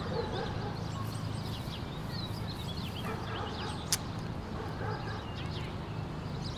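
Birds chirping and calling over a steady low background hum, with a single sharp click about four seconds in: the shutter of a plastic Budweiser-can 35mm film camera firing.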